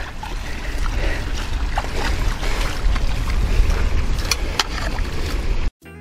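Shovel scraping and slopping through wet paddy mud as a drainage channel is cut to let standing water out, with a few sharper scrapes and a steady low rumble of wind on the microphone. The sound cuts off suddenly near the end.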